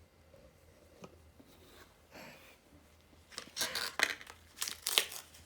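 Packaging being handled: a few faint clicks, then from about three seconds in a run of loud, crackly rustling and crinkling bursts.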